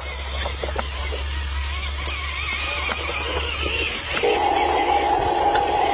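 Cartoon construction-vehicle engine sound effects with background music: a low engine hum, then from about four seconds in a louder, steady buzzing machine sound.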